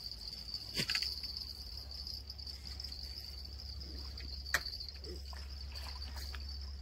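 Steady, high insect chorus buzzing without a break from the bush, with a steady low rumble beneath. Two sharp clicks cut through, about a second in and about four and a half seconds in, the second louder.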